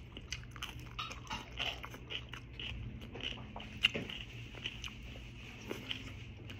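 A person chewing and biting food close to the microphone: a scatter of small wet clicks and smacks of mukbang eating.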